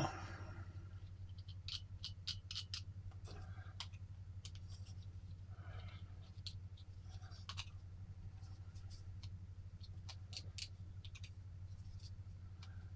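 Scattered small clicks and scratches of a handheld mini vise being handled while a scale-model engine part is fitted between its rubber-covered pins, over a steady low hum.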